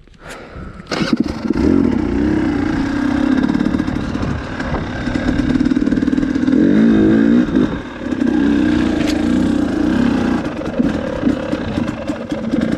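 Dirt bike engine running under throttle, loud from about a second in, its revs rising and falling as the bike is ridden.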